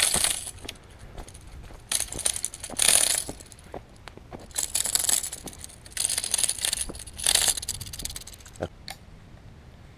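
Short, irregular bursts of crunching and scraping on gravel and dry ground, from a landed speckled trout flopping and sliding on the path and from footsteps over the gravel. The scuffling stops about nine seconds in.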